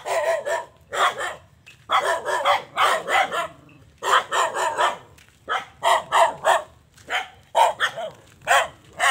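A dog barking over and over, in short runs of barks with brief pauses between them.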